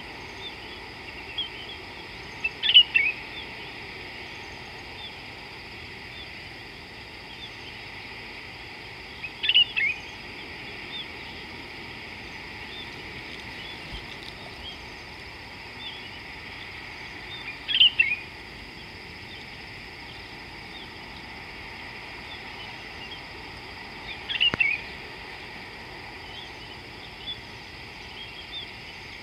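A bird calling four times at about seven-second intervals, each call a short burst of quick falling notes, with fainter chirps between, over a steady high hiss.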